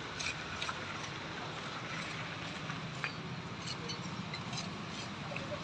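Scattered light clicks and scrapes of a steel trowel working mortar, over a steady low hum.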